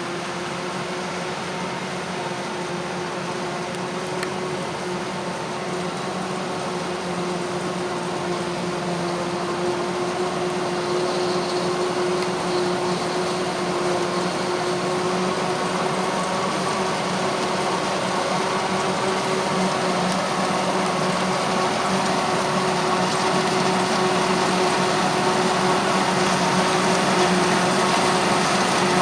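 Heavy farm machinery running steadily with a droning whine, getting gradually louder, as a machine comes closer during maize harvesting.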